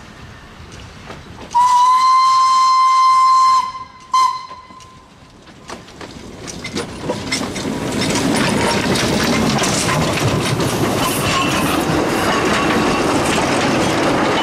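Narrow-gauge steam locomotive whistle: one long steady blast of about two seconds, then a short toot. Then the double-headed steam train passes close by, its locomotives working and the coaches' wheels clicking and clattering over the rail joints, loud and continuous.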